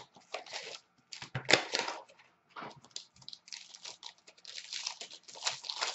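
Paper-and-foil hockey card pack wrapper being torn open and crinkled, the loudest rip about a second and a half in, followed by the stack of cards rustling and sliding in the hands.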